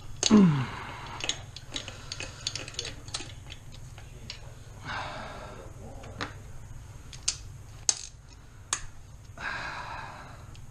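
Hand tools working on the engine's intake manifold bolts: a loud metal clank near the start, then scattered sharp clicks of a ratchet wrench and sockets against metal, with two short rasping stretches of ratcheting.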